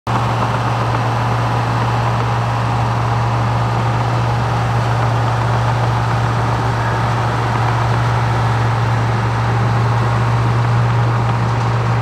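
Heavy construction-machine diesel engine running steadily at a constant pitch with a strong low hum.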